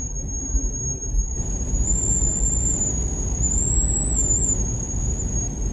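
In-cabin road noise of a vehicle driving on a snow-covered road: a steady low rumble of engine and tyres, with the hiss widening about a second in. A thin, high-pitched whine runs over it, wavering slightly in pitch.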